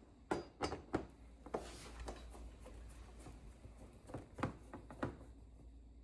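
Scattered clicks and light knocks of small metal hardware being handled, with several in the first second and two more near the end, as mounting screws are tried against the TV and the wall-mount brackets.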